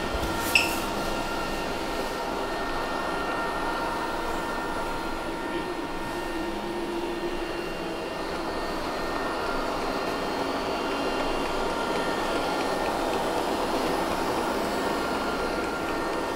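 Robot vacuum cleaner running, a steady motor hum, with one short click about half a second in.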